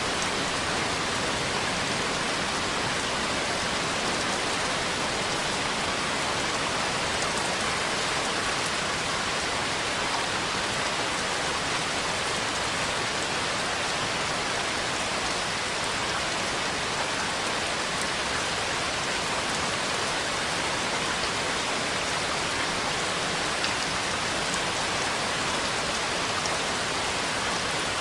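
Steady heavy rain, an even hiss of drops falling on surfaces, with no thunder.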